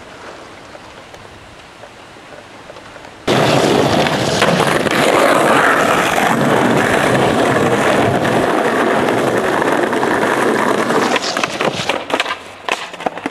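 Skateboard wheels rolling loud and close over rough paving, starting suddenly about three seconds in. Near the end the rolling breaks into a few sharp clacks as the board hits a wooden bench.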